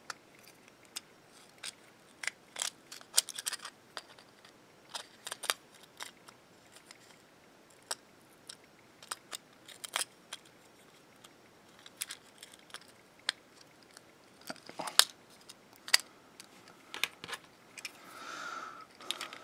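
Small plastic clicks and taps of a keychain garage-door remote's case and circuit board being handled and pressed back together: irregular single clicks, with a few quick clusters.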